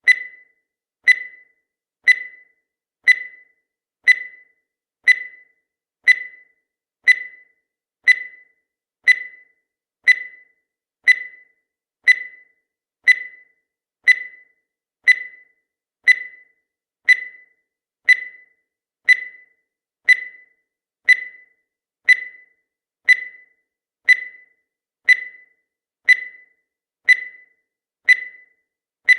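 Countdown timer sound effect: a short, high beep once a second, each one dying away quickly, marking off the seconds.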